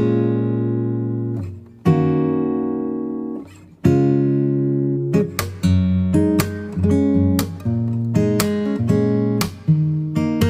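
Background music on acoustic guitar: long strummed chords left to ring about every two seconds, then a quicker plucked pattern from about halfway.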